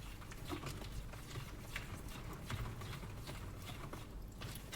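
Irregular light clicks and taps of objects being handled on a tabletop, over a low steady hum.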